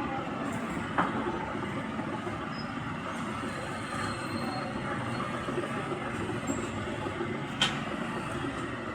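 Steady rumbling background noise with two sharp clicks or knocks, one about a second in and one near the end.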